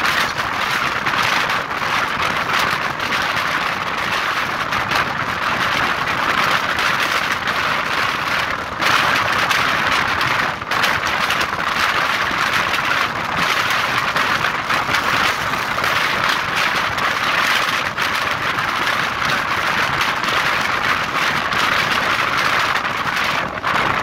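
Steady rushing noise of a passenger train running at speed, wheels on rails and wind, heard from an open window of the coach. The noise dips briefly twice around the middle.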